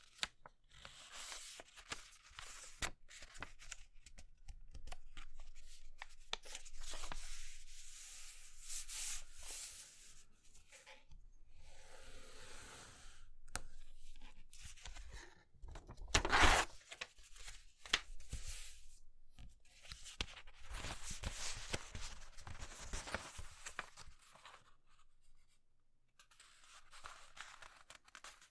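A sheet of paper being folded and creased by hand, rustling and sliding against a cutting mat in short bursts, with one much louder burst about halfway through.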